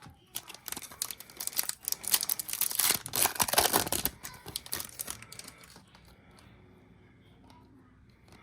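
Wrapper of a Topps Chrome baseball card pack crinkling and tearing as it is opened by hand, for about four seconds, then dying down to faint handling.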